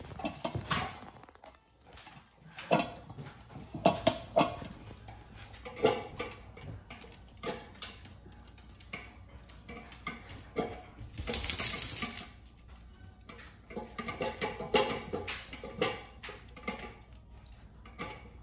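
Beagles eating from stainless-steel bowls: irregular clinks and rattles of food and tongues against the metal, with a longer, louder scraping rattle about eleven seconds in.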